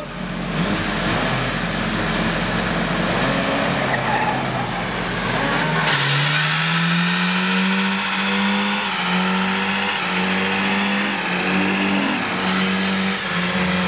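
Car engine revved hard in a burnout: it runs at moderate revs, then climbs about six seconds in and is held high while the spinning tires squeal and smoke.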